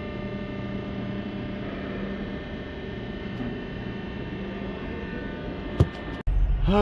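Steady electrical hum made up of several steady tones, with one sharp click near the end. It then cuts off abruptly into a much louder low rumble.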